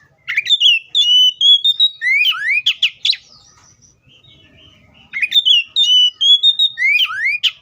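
Oriental magpie-robin singing two similar phrases. Each opens with rising notes, holds a slightly wavering whistle, then ends in a quick run of upward sweeps. The second phrase starts about five seconds in.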